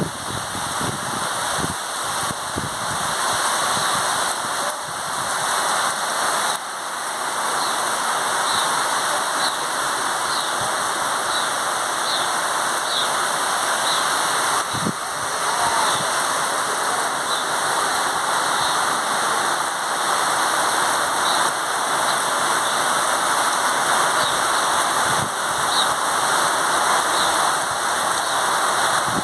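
Steady rain falling, an even hiss, with a few dull knocks now and then.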